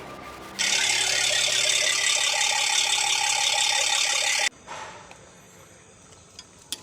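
A small power tool runs steadily with a high whine for about four seconds, starting and stopping abruptly.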